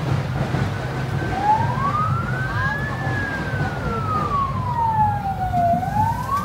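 Fire engine siren wailing slowly: it rises about a second and a half in, falls over the next few seconds, and starts rising again near the end, over a steady low rumble.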